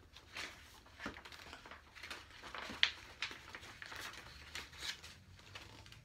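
Magazine pages being turned and handled: paper rustling and crinkling in irregular bursts, with one sharper paper snap about three seconds in.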